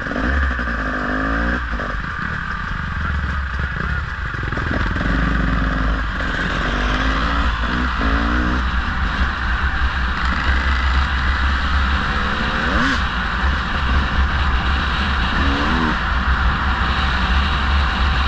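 Motorcycle engines running on the move in a group ride, the revs rising and falling several times through the gear changes over a steady low engine drone.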